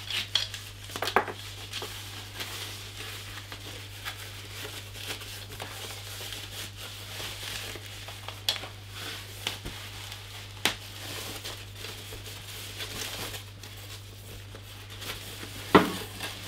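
Plastic packing wrap crinkling and rustling as it is handled and bunched up, with a few sharper rustles or knocks, the loudest near the end. A steady low hum runs underneath.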